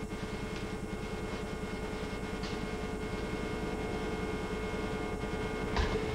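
Steady mechanical hum of workshop background noise: a fast low pulsing under a steady tone, with a short thump just before the end.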